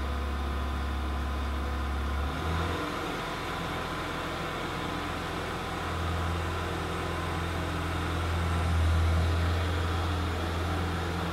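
Engine running steadily as a low drone, heard inside a vehicle cabin. It shifts slightly in pitch a little over two seconds in and swells briefly around nine seconds.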